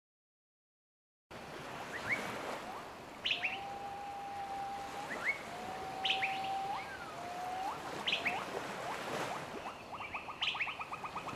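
Birds calling outdoors: repeated short, quickly rising chirps and a few longer level whistles that turn upward at the end, over a steady outdoor hiss. A fast ticking rattle comes in near the end. The sound starts after about a second of silence.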